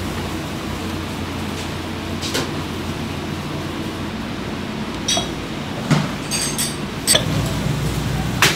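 Kitchen hum with several light clinks and knocks of dishes and utensils. The hum thickens about seven seconds in, and the sharpest knock comes near the end as a plastic paddle scoops rice from a rice cooker pot.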